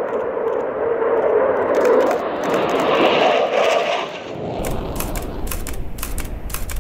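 Jet noise of a USAF F-15 Eagle's twin turbofan engines on a low-level pass, loudest about two to three seconds in and then dropping. From about four and a half seconds a camera shutter fires in rapid bursts over a low rumble.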